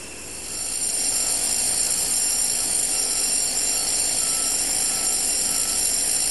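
Heavy site machinery running: a steady noise with a high-pitched whine that comes in about half a second in and holds.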